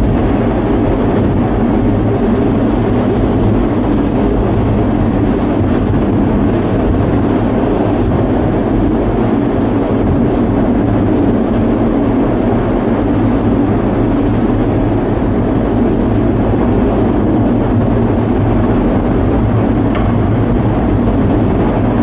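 Gateway Arch tram capsule climbing its track, heard from inside the small pod: the steady, loud running noise of the train-and-Ferris-wheel-style mechanism, low in pitch with a steady hum under it.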